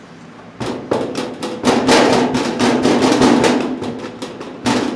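Rotary polisher starting up with a pad full of polish on the paint, spreading the product. The motor runs with a steady hum under a dense, irregular clatter. It stops for an instant near the end and starts again.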